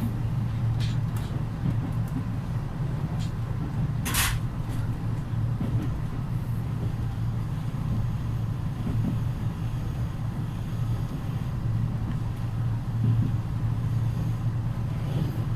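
Inside an electric commuter train carriage, a steady low rumble, with one short, loud hiss of compressed air about four seconds in.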